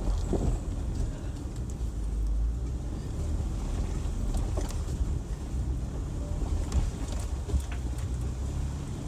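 Land Rover LR4 crawling slowly along a rocky dirt trail: a steady low engine and drivetrain rumble, with a few faint clicks and knocks scattered through it.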